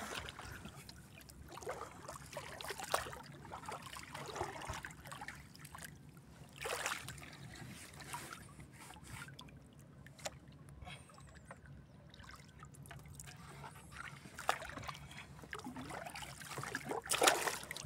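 Water lapping and sloshing against the hull of a small outrigger boat, with a few louder splashes, the loudest near the end.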